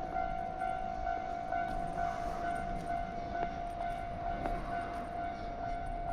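Japanese level-crossing warning bell ringing: an electronic tone that pulses about twice a second, with scattered faint clicks.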